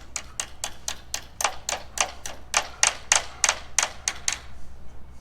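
Hammer driving nails through pilot holes to fasten a cladding board, in quick steady blows about four a second, stopping a little over four seconds in.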